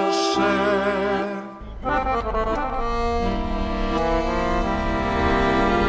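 Background music. It dips briefly about one and a half seconds in, then carries on with sustained notes over a low bass.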